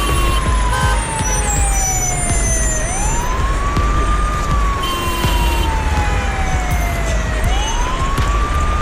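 A siren wailing slowly. Its pitch falls over about three seconds, then sweeps quickly back up, twice, over a steady low rumble.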